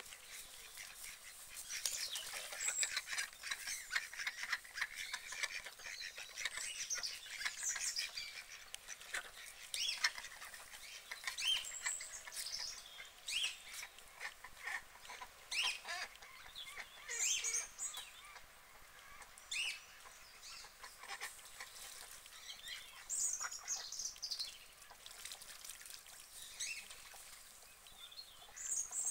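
Birds calling: a scattered run of short, high chirps and calls, some gliding in pitch, coming every second or two.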